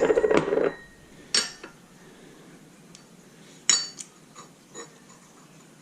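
Steel pulley and bearing parts clinking against each other and the press as they are handled: one sharp clink about a second and a half in, a louder ringing one past the middle, then a few lighter taps.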